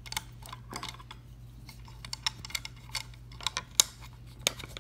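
Screwdriver backing out the steel front stock screw of a Ruger 10/22 from its escutcheon, a run of irregular light clicks and ticks, the sharpest about four seconds in, over a steady low hum.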